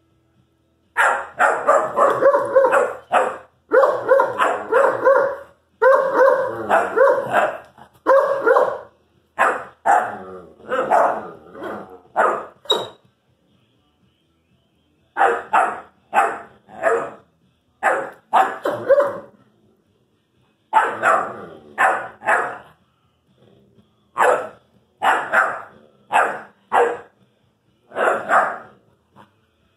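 Irish wolfhound puppy barking and yowling, "talking" in a run of pitched, wavering vocal bursts. They come almost without a break for the first dozen seconds, then after a pause of about two seconds in shorter calls about a second apart.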